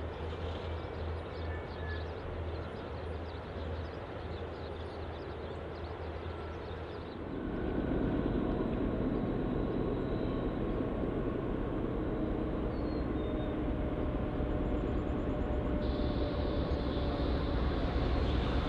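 Trains passing on a main line: a steady rumble from an Amtrak passenger train, then, after a sudden cut about seven seconds in, the louder rumble and drone of a Norfolk Southern intermodal freight train.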